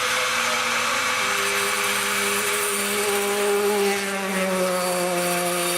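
Electric grinder running under load, a steady motor whine over the hiss of grinding. The whine dips slightly in pitch about four seconds in.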